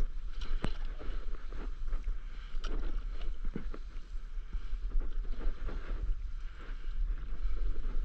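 Paddle strokes dipping and splashing in calm sea water from a stand-up paddleboard, with irregular small splashes and knocks. Wind rumbles steadily on the microphone underneath.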